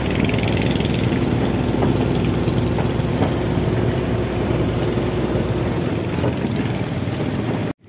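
Motorized fishing boat's engine running steadily under way, with wind and water noise; the sound cuts off abruptly near the end.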